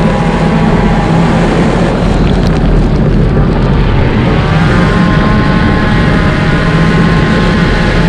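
Dirt-track stinger race car's engine running hard under racing load, heard loud from inside the cabin. Its pitch climbs about halfway through and then holds steady.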